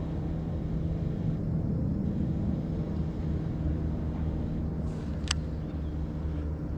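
Steady low engine hum, with a single sharp click about five seconds in.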